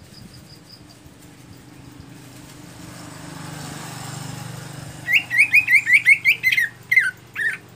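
Greater green leafbird (cucak ijo) calling: a fast run of about ten sharp, falling notes, then two or three slower ones near the end. Before it, a motor vehicle passes in the background as a low hum that swells and fades.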